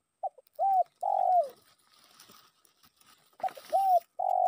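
Spotted dove cooing: a three-note phrase (a short note, a coo, then a longer coo that falls away at the end), given twice about three seconds apart. It is the territorial call of a lure dove calling rival males.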